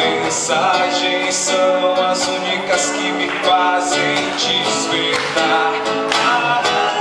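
Live song: an acoustic guitar is strummed while a singer sings over it.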